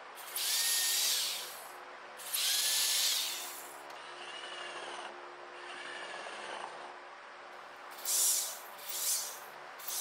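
Drill driving screws into the wooden box: two loud runs of the motor, each with a whine that winds up and down, then a longer, quieter run. Near the end a drill runs in several short bursts.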